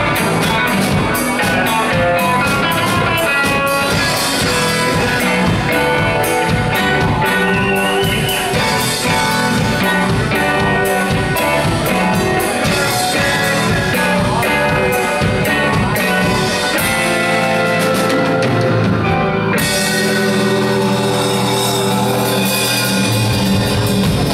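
Live rock band playing loud amplified music with electric guitars, keyboard and drum kit. Roughly two-thirds of the way through, the steady drumbeat stops and the band holds long sustained chords.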